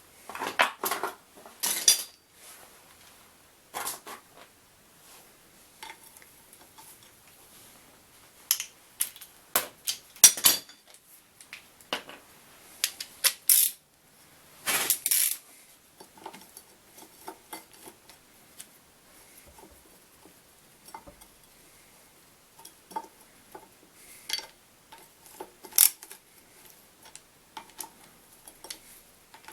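Hand tools clinking and clanking on metal engine parts as the upper alternator mounting bracket is fitted and bolted down: irregular sharp metallic clicks, busiest about a second in and again about fifteen seconds in.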